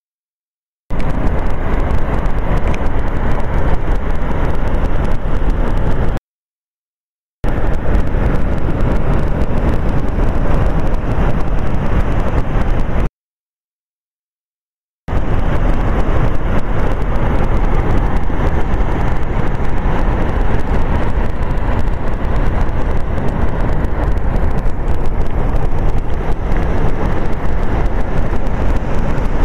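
Steady, loud rushing of water plunging over Niagara's Horseshoe Falls, a deep, even noise with no rhythm, broken twice by a second or two of dead silence.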